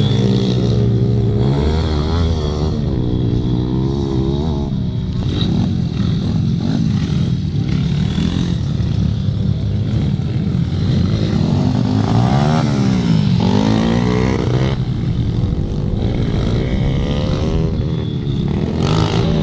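Small dirt bike engines revving as the bikes ride round the track, the pitch climbing and dropping with throttle and gear changes. About twelve seconds in, one bike's engine note rises sharply and then falls as it passes close.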